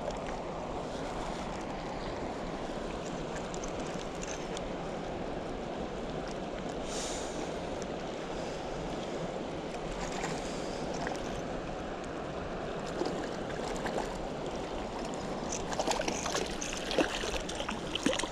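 Steady rush of wind and lake water, with a few sharp clicks and knocks in the last few seconds.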